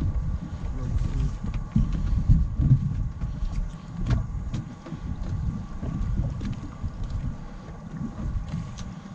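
Wind buffeting the camera microphone on an open boat, a heavy uneven low rumble, with a faint steady high hum underneath and a few scattered light clicks and knocks.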